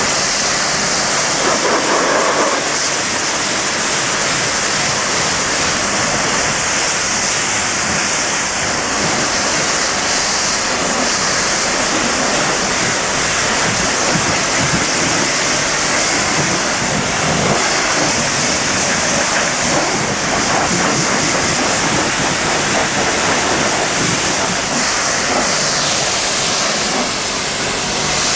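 Pressure washer jet spraying water onto a car's painted panels and glass, rinsing off snow foam, with a steady hiss of spray.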